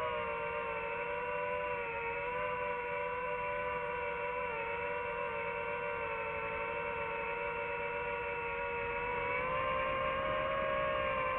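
Drone's electric motors and propellers whining steadily, heard from on board. The pitch wavers slightly with throttle and rises a little about nine seconds in.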